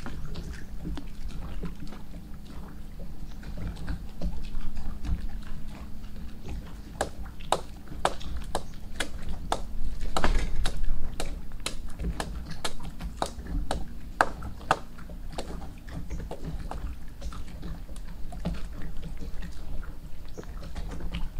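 A hand blade cutting into the bark of a tree trunk: a run of sharp, irregular knocks and clicks, thickest in the middle, over a steady low rumble of wind and water.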